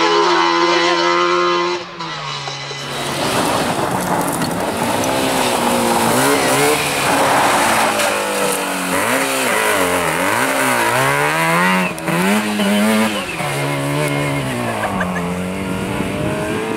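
Rally car engines at full effort. First a steady held note, then, after a cut about two seconds in, another car's engine revving hard, its pitch climbing and dropping again and again as it changes gear and slides through bends, with tyre and gravel noise.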